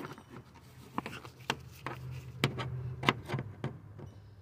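Plastic clicks and scraping as a clip remover tool and gloved fingers work at a plastic push clip in a car's plastic cowl cover, with sharp clicks at irregular intervals. A low steady hum sits underneath in the second half.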